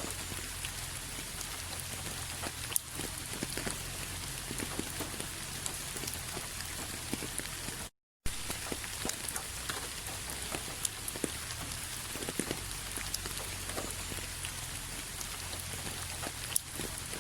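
Steady rain falling, with individual drops ticking sharply here and there over an even hiss. The sound cuts out completely for a fraction of a second about halfway through.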